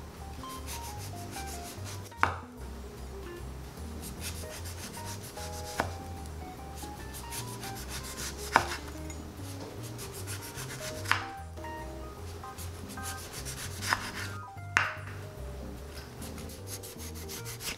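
Kitchen knife slicing a lime into rounds on a wooden cutting board. The blade rasps back and forth through the peel and flesh, then knocks sharply on the board as each slice comes free, about seven times.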